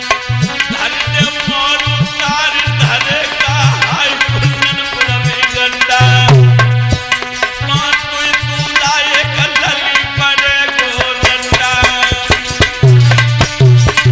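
Indian devotional instrumental music: a hand drum beats a steady rhythm with deep bass strokes, while a melodic instrument plays a wavering, ornamented tune over it.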